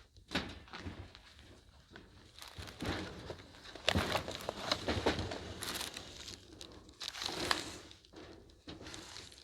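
Irregular crunching and crinkling of scattered debris and litter, starting a couple of seconds in and loudest around the middle.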